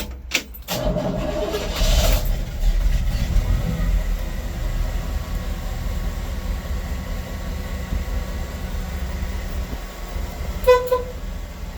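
1955 Chevrolet 3100 pickup's Vortec 350 small-block V8 starting. After a few clicks it fires about a second in and revs briefly around two seconds in, then settles into a steady idle. Near the end there is a brief toot of a horn.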